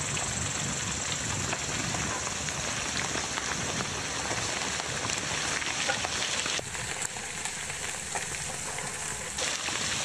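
Steady crackling hiss with many small clicks: loose soil and rocks sliding and clattering down a steep slope as a tracked excavator works down it. The sound drops a little about two-thirds of the way through.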